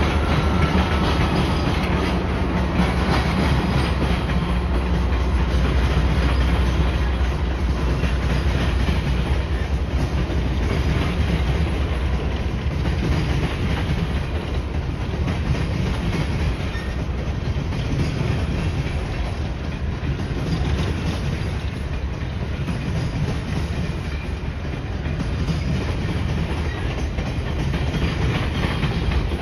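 Canadian Pacific GE AC4400CW diesel locomotive passing, its engine's low rumble strongest in the first several seconds, then a coal train's cars rolling by with steady wheel noise and clickety-clack over the rail joints.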